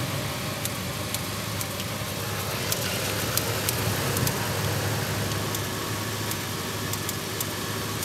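Ford F-150 engine idling with a misfire. Irregular sharp snaps come through about one to two a second: secondary ignition arcing, the spark jumping out of a bad spark plug wire.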